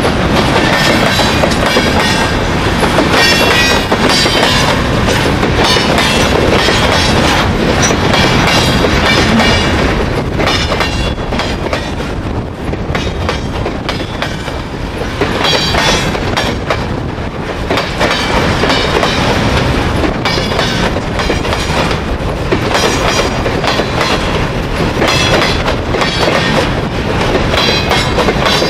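Freight wagons (covered hoppers and boxcars) rolling past close by: a continuous rumble of steel wheels on the rails with clattering and clicking from the passing trucks, easing slightly about halfway through.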